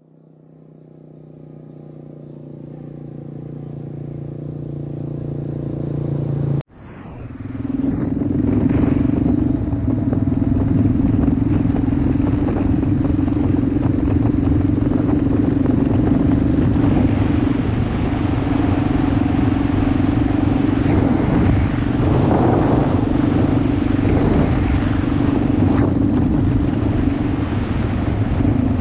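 Kawasaki KLR650 single-cylinder motorcycle approaching, its engine growing steadily louder for about six seconds. After a sudden cut, the engine runs steadily under way, heard from on the bike.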